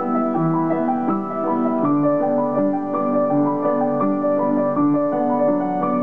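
Solo piano music: a slow, gently repeating pattern of held notes, moving to a new chord about two seconds in.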